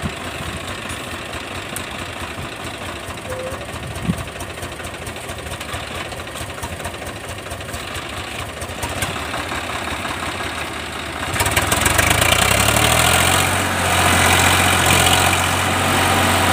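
Swaraj 744 FE tractor's three-cylinder diesel engine idling with a fast chugging, then revved hard about two-thirds of the way through and held at high revs as the tractor tries to pull its bogged rear wheels out of deep mud.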